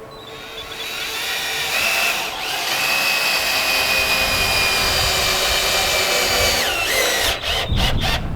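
Power drill running at a steady high pitch for several seconds, dipping briefly about two seconds in, then winding down and giving a few quick stop-start spins near the end.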